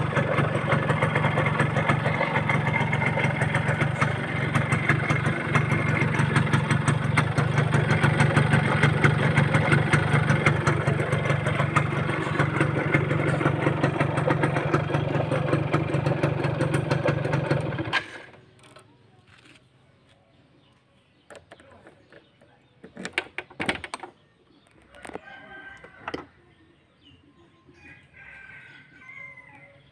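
Yamaha F1ZR's two-stroke single-cylinder engine idling steadily as it is warmed up, then stopping abruptly about eighteen seconds in. After it, a few knocks, and a rooster crows near the end.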